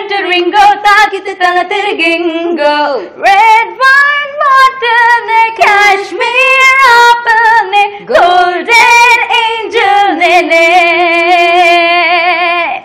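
A young woman singing solo without accompaniment, in a clear voice with wavering vibrato, ending on a long held note.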